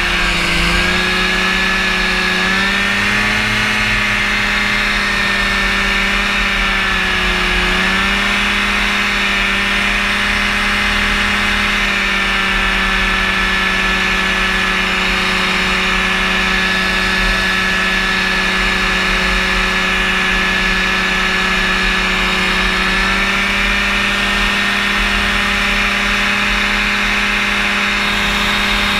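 The Rotax engine and propeller of a powered parachute running steadily at flying power, with wind rushing over the microphone. The engine pitch dips and comes back up briefly near the start and again about eight seconds in.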